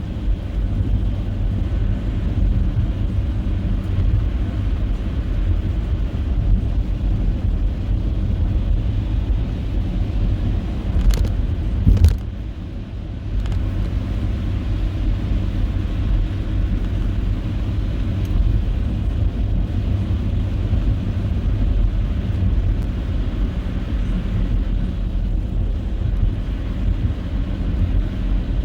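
A car driving, with a steady low rumble of engine and tyres. Two sharp clicks come about eleven and twelve seconds in, and the rumble briefly drops a little after them.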